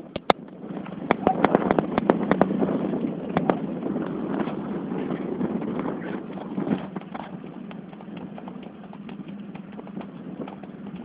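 Horse's hooves clip-clopping in an irregular run of sharp knocks, over a low steady hum.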